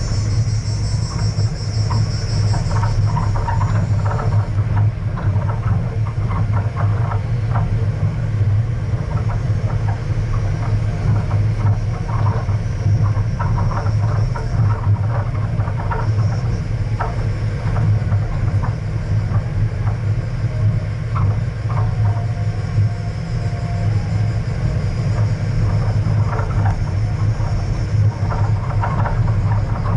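A vehicle driving along a dirt and gravel road: a steady low engine and road rumble, with frequent irregular rattles and knocks from the rough, stony surface.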